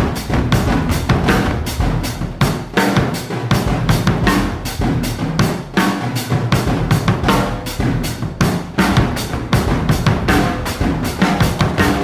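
Background music with a steady, driving drum-kit beat, the drum hits falling several times a second.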